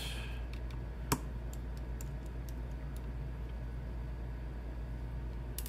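Light metallic clicks and ticks of a precision Torx screwdriver working the tiny screws of a laptop's Wi-Fi antenna bracket, with one sharper click about a second in and another near the end, over a steady low hum.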